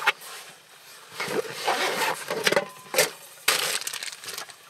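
A Trangia storm cooker being unpacked: its fabric case rustling while the nested metal pots and pieces are lifted out, knocking and clinking against each other in irregular bursts.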